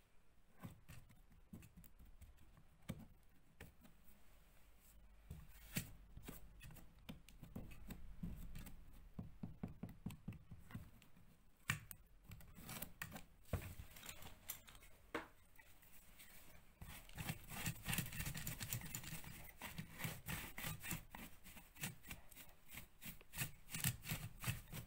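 Crumbling plaster from an old lath-and-plaster wall being picked and knocked away by hand around a socket: scattered small clicks and crackles. Near the end a bristle paintbrush sweeps the dust off the broken edge, a denser scratchy rustle.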